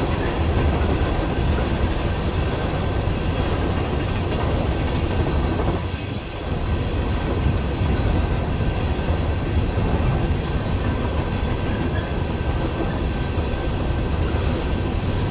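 BNSF coal train's hopper cars rolling past a grade crossing: a steady rumble and clatter of steel wheels on the rails.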